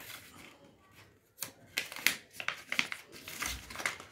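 A sheet of paper being folded and creased by hand: irregular crisp crackles and snaps, sparse at first and thicker from about a second and a half in, with a soft low thump about three and a half seconds in.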